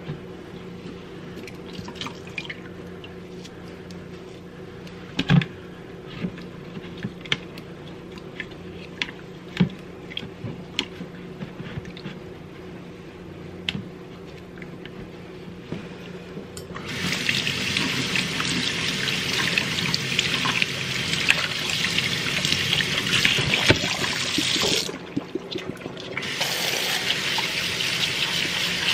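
Scattered small clicks and drips as a wet makeup brush is worked and squeezed over a bowl of water. After about seventeen seconds a tap starts running into the sink, stops briefly, then runs again.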